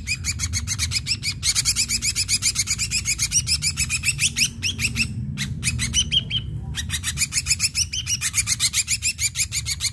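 Ashy drongo singing a fast, even run of high chattering notes, about ten a second, with two short breaks past the middle.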